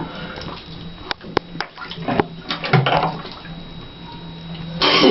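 Water sloshing and lapping in a full bathtub as a body shifts in it, with a few sharp clicks about a second in and a louder rush of noise just before the end.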